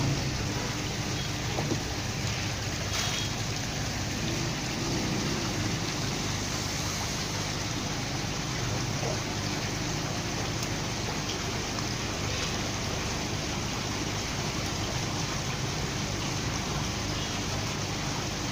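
Steady rushing and splashing of pond water in a koi holding cage crowded with fish.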